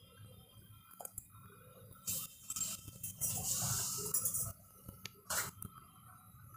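Faint kitchen handling sounds: a few light clinks and knocks of utensils, with a short hiss a little past the middle.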